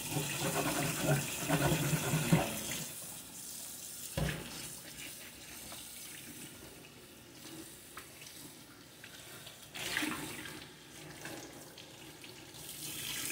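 Kitchen faucet running into the sink while an item is washed under it, with handling clatter in the first couple of seconds, a sharp knock about four seconds in and another clatter about ten seconds in.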